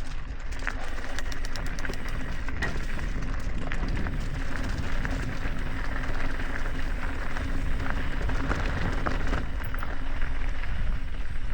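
Mountain bike rolling fast down a gravel trail: tyres crunching and crackling over loose stones, with scattered ticks and a steady low hum that stops near the end.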